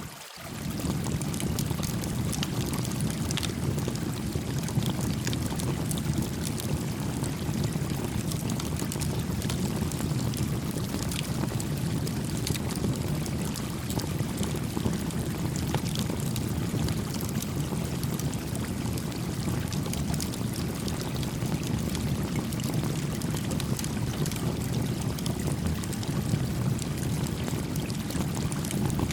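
Steady rush of a gently flowing stream with a small campfire crackling over it in frequent sharp pops. The sound drops out briefly right at the start.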